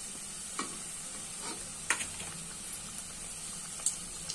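Gujiyas deep-frying in hot oil in a kadhai, a steady sizzle, with a few sharp clicks as they are turned with a slotted spoon.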